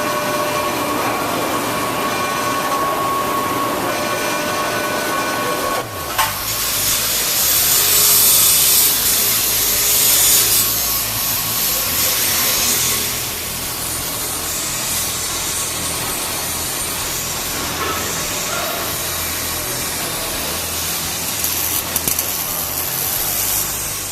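Metalworking shop noise. A steady machine whine runs for the first six seconds; after a sudden change at about six seconds, a louder hissing, grinding-like noise follows and then settles to a steadier level.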